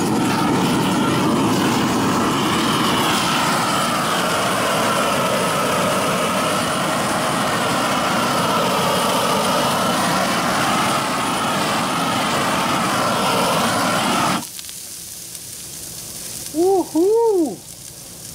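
A 400,000 BTU propane GrillGun torch blasts a steady, loud roaring jet of flame onto thick bone-in ribeye steaks. It cuts off suddenly about 14 seconds in, leaving the meat sizzling on the grill grate. Near the end come two short, loud rising-and-falling tones.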